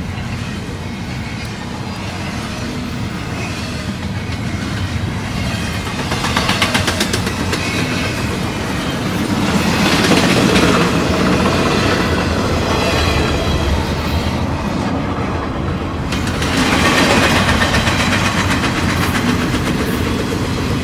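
Freight train rolling by: a continuous rumble of wheels on rail that swells louder three times, with a run of rapid clicks from the wheels about six seconds in.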